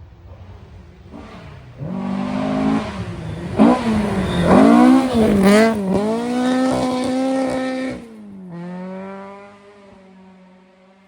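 Historic rally car's engine driven hard: it comes in about two seconds in and swings up and down in pitch with quick revs and gear changes. It then holds a high, steady note and drops away sharply about eight seconds in, fading as the car goes off.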